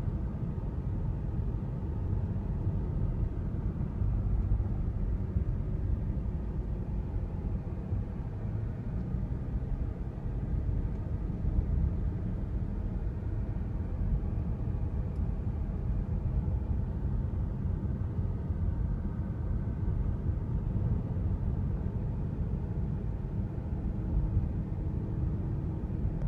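Car driving slowly along a paved street, heard from inside: a steady low rumble of engine and tyres on the road.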